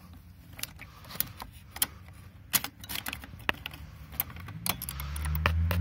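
Irregular sharp clicks and taps of metal screwdrivers prying at a plastic trim piece and its metal retaining clip. A low hum comes up near the end.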